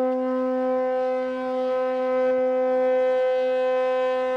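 Ship's horn of the car ferry MF Manger sounding one long, steady blast at a single pitch.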